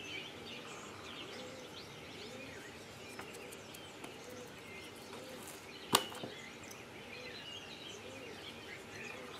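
Faint birdsong: small birds chirping over low cooing, with one sharp click about six seconds in.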